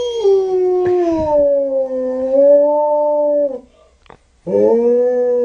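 Gray wolf howling. One long howl slides down in pitch, levels off and breaks about three and a half seconds in. After a brief pause for breath, a second howl starts near the end.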